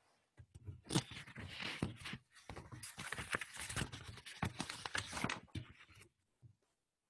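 Crinkly rustling and handling noise close to the microphone, dense with small clicks and crackles, running for about five seconds before it stops.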